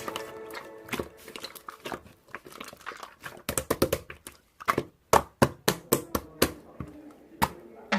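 Irregular clicks and light knocks in a small room, like something being handled or tapped. They come sparsely at first and more thickly and louder in the second half.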